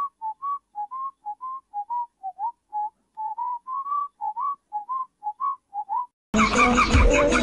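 Someone whistling a tune in short, clear notes, about three a second, many sliding slightly upward, with dead silence between them. Loud music with a beat cuts in near the end.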